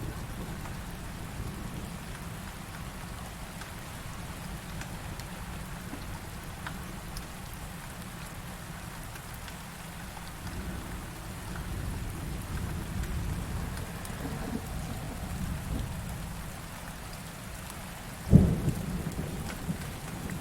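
Heavy rain falling steadily under a low rumble of thunder that swells about halfway through. Near the end a sudden loud thunderclap strikes close by and dies away in a few smaller rumbles.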